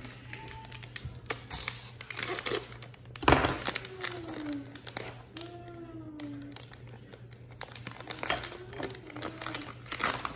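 Plastic pouch of shredded cheddar cheese crinkling and crackling as hands work at its top to tear it open, with one louder sharp crack about three seconds in.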